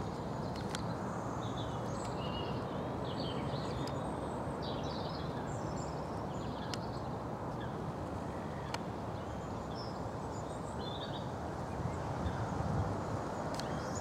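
Wild songbirds chirping and singing in short scattered phrases over a steady outdoor background hiss, with a few faint clicks.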